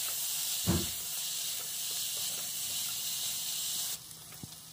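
Sliced onions sizzling in hot oil in an aluminium pressure cooker, a steady high hiss, with the spatula knocking once against the pot under a second in. The hiss cuts off abruptly near the end.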